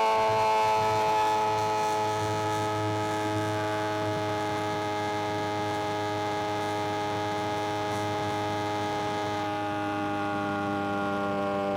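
Suzuki GSX-R 750 inline-four engine running steadily under way, its even hum sinking slowly in pitch as the revs ease off.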